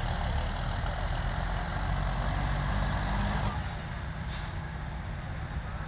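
Diesel engine of a 1979 cab-over Peterbilt semi running hard under load, pulling the sled. About three and a half seconds in the engine drops back, and a short air hiss follows.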